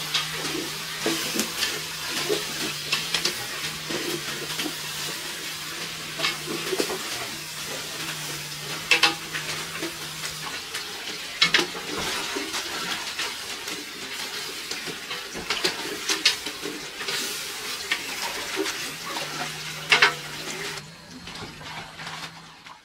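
Food frying in a pan and being stirred, with the utensil scraping and clinking against the pan and a few sharp clinks. The sound drops away near the end.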